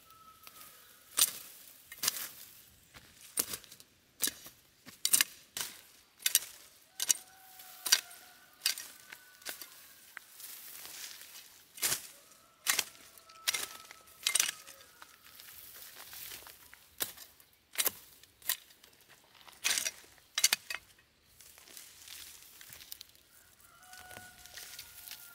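Weeds pulled up by hand: irregular sharp rustles and snaps of dry stems and roots tearing out of the soil. A rooster crows faintly a few times.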